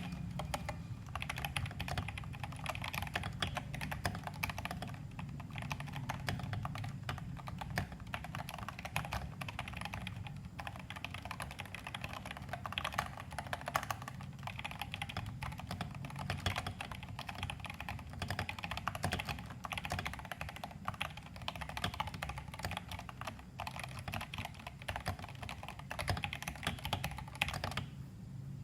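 Continuous typing on an FL-MK870 mechanical keyboard with pre-lubed Feker Crystal switches on 50 g springs and cherry-profile keycaps. The board is tape-modded and dampened with silicone, giving a deep, muted keystroke sound. Typing pauses briefly near the end.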